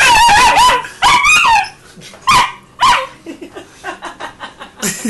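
Alaskan Malamute puppy barking aggressively at another dog: two long, high-pitched, wavering yowl-barks, then two short sharp barks a little over two seconds in, followed by quieter, softer sounds.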